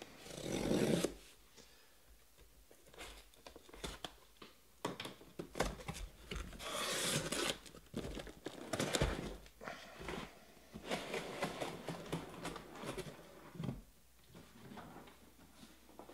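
Cardboard shipping case of sealed trading-card hobby boxes being opened and unpacked by hand: irregular scraping, rustling and sliding of cardboard and wrapped boxes, with a few knocks as boxes are set down.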